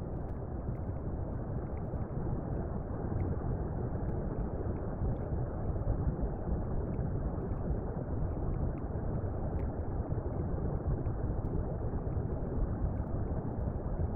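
Steady, muffled underwater rumble heard through a camera in a waterproof housing, with faint scattered clicks.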